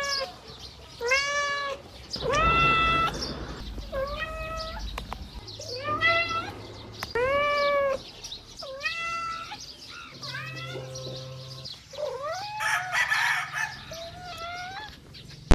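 A kitten meowing over and over: about ten short, high-pitched meows a second or so apart, with one longer, drawn-out meow early on and a rougher, harsher cry near the end.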